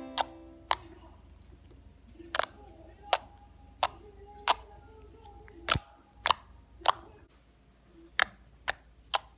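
Glossy clicky slime being pressed and kneaded, giving sharp clicks and pops at uneven intervals, about one or two a second, over a faint low hum.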